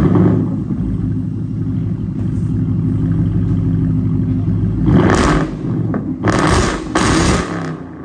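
Ford Mustang GT's 5.0-litre V8 through a straight-piped, true-dual catted exhaust, idling steadily and then revved in quick throttle blips, three times in the last three seconds.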